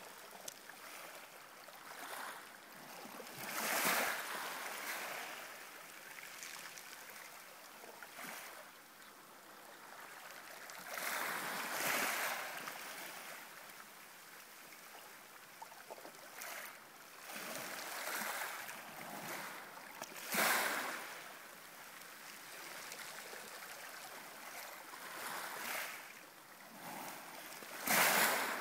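Small waves lapping at the shoreline: a low steady wash with soft surges every few seconds as ripples break at the water's edge.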